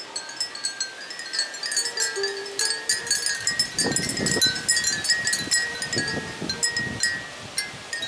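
Many Japanese fūrin wind chimes tinkling together in the breeze, with dense, irregular strikes and ringing tones. A low rumble runs under them in the middle.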